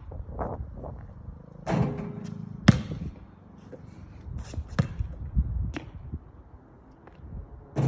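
A basketball bouncing on an outdoor hard court: a few separate thuds, the sharpest close to three seconds in.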